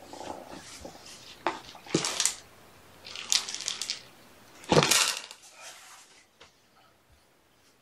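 Several short bursts of crinkly rustling with a few sharp knocks. The loudest comes about five seconds in, together with a dull thump.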